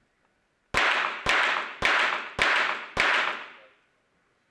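Five .22 Short rapid-fire pistol shots fired in quick series, a little over half a second apart, each trailing off in a short echo in the range hall.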